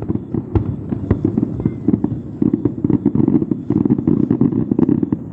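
Aerial fireworks going off in a rapid, dense barrage of bangs and crackles, many bursts a second overlapping one another.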